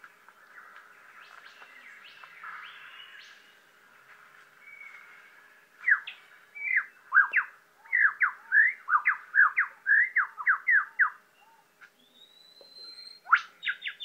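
A male superb lyrebird singing: soft warbling notes at first, then from about six seconds in a fast run of loud, clear whistled notes, each sweeping down in pitch, ending about eleven seconds in; near the end a long high note and a quick upward sweep.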